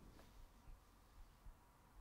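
Near silence: room tone with a faint low hum.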